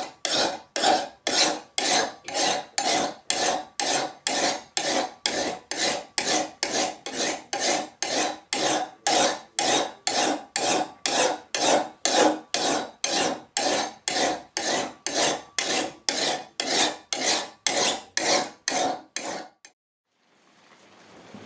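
A hand file worked in steady push strokes, about two a second, each stroke a rasping scrape. The filing stops abruptly near the end, followed by a faint rising hiss.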